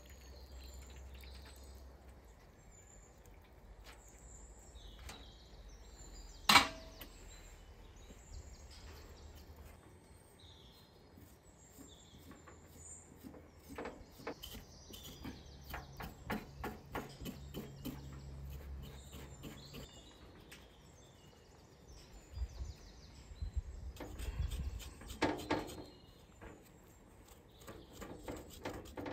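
Hot water poured from a kettle into a metal basin at the start, with birds chirping in the background. A single sharp knock about six seconds in is the loudest sound. From about fourteen seconds in, a knife scrapes the hair off a scalded cow's leg in quick repeated strokes, about two or three a second, and there are further irregular knocks and handling sounds later on.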